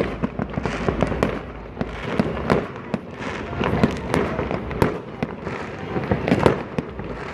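Many fireworks and firecrackers going off at once across a city, a dense, irregular stream of bangs and pops with no gap.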